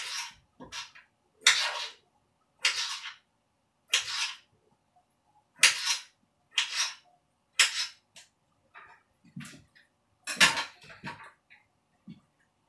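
Knife cutting bamboo shoots on a cutting board: a string of sharp, short cuts, about one a second.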